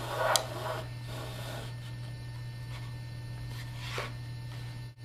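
Nylon-type djembe tuning rope being threaded under and over the drum's vertical ropes and pulled through, making a few short rubbing swishes, over a steady electrical hum.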